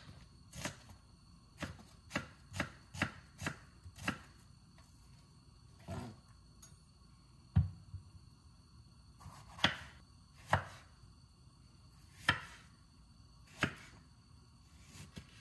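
Kitchen knife chopping on a cutting board: a quick run of about eight strokes, then slower single cuts every second or two.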